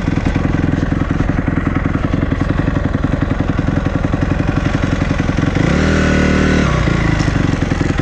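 KTM EXC enduro motorcycle engine running at low revs with a rapid, lumpy firing beat while the bike rolls slowly, with one short rev rising in pitch about six seconds in.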